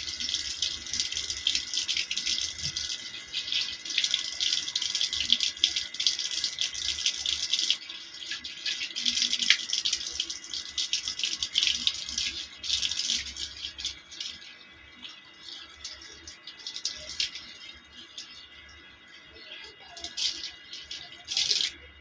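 Water splashing as a cat is rinsed by hand during a bath, dense for about the first fourteen seconds, then thinning to scattered splashes.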